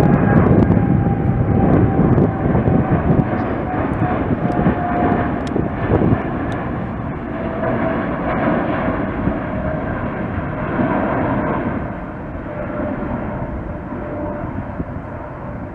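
Boeing 787 jet climbing out after takeoff, its engine noise steadily fading as it moves away. A faint whining tone rides on the rumble and drops slightly in pitch.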